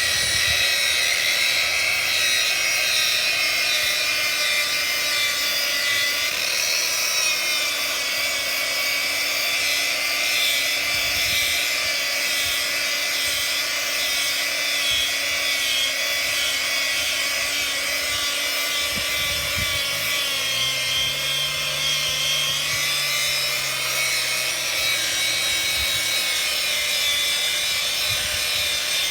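Power sander grinding concrete: a steady high motor whine over a continuous abrasive rasp, its pitch wavering slightly as the tool is worked.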